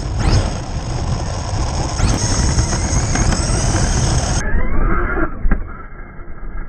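Losi DBXL-E electric RC buggy's motor whining up and down in pitch under throttle, over rough wind and tyre noise. About four and a half seconds in the sound changes abruptly to a duller recording with a falling whine and a sharp click.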